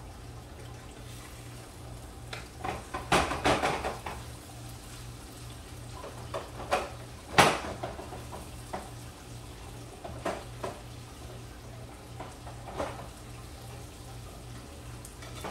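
Pots and pans knocking and clattering on a gas stovetop, with a utensil clinking, in short scattered bursts; the loudest is a single sharp clank about seven seconds in.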